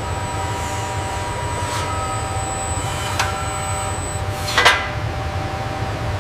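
Factory machinery ambience: a steady low hum with several thin steady whines, and a few short metallic clanks, the loudest about four and a half seconds in.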